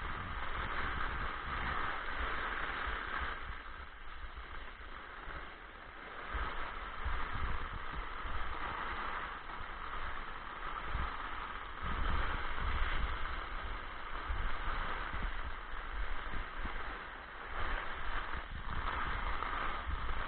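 Hurricane storm sounds outdoors: a steady hiss, with gusts of wind rumbling on the microphone.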